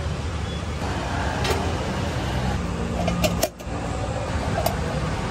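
Steady low rumble of street traffic or an idling engine, with a few faint clicks near the middle and a brief drop in level about three and a half seconds in.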